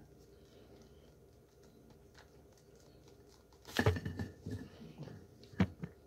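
Crunching of a block of baked cornstarch: a quick burst of crisp crunches about two-thirds of the way in, a few softer ones after, and two sharp cracks near the end.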